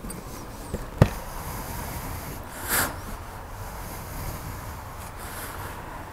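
A scooter's hinged seat is unlatched and swung open. There is a sharp knock about a second in with a smaller click just before it, then a brief rustling swish near three seconds, over a low steady rumble.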